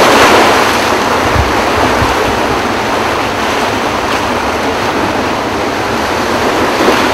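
Floodwater rushing out through the open spillway gates of Kaw Dam, a loud, steady rush of water from a high-volume flood release.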